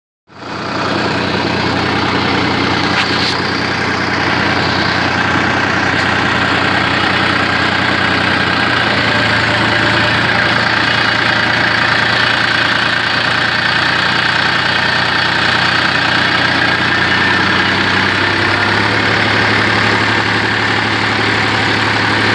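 Massey Ferguson 245 DI tractor's three-cylinder diesel engine running steadily, heard from the driver's seat.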